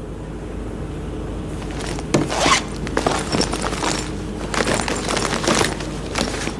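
Rustling, scraping and clicking handling noise that starts about two seconds in and runs for about four seconds, over a faint steady background hum.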